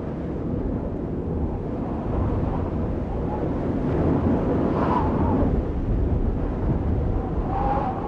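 A steady, low rumbling noise with no clear rhythm, swelling slightly a couple of seconds in, with a faint tone rising out of it about five seconds in and again near the end; this is the sound bed under the closing credits.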